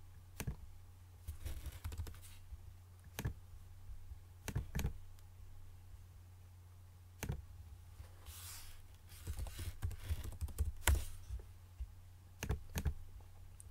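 Computer mouse clicks and keyboard keystrokes: scattered single clicks, with a quicker run of typing about eight to eleven seconds in, over a low steady hum.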